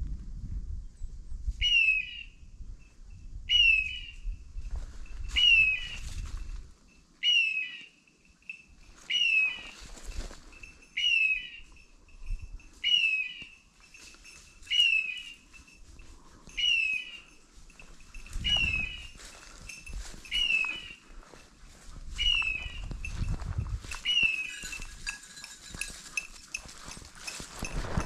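A hunting dog's beeper collar sounding short, falling electronic chirps at a steady rate of about one every two seconds, over footsteps through dry leaf litter.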